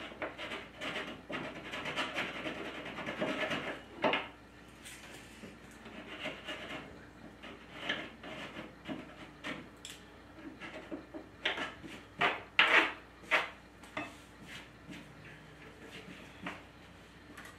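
Irregular scraping and rubbing strokes with small knocks, as a small object is worked by hand against a wooden tabletop; a few louder strokes come together about two-thirds of the way through.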